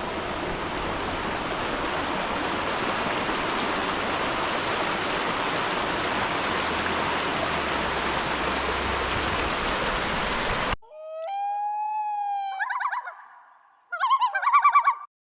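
Steady rushing of flowing water that cuts off suddenly about eleven seconds in. A common loon then calls: one long held wail, followed by two stretches of quavering tremolo.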